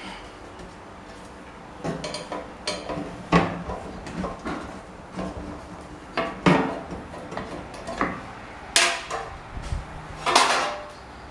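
Irregular metallic clanks and knocks, about a dozen, as metal parts and tools are handled, with a few louder strikes.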